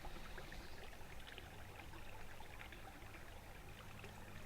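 Small river trickling and babbling faintly, with a steady low hum underneath.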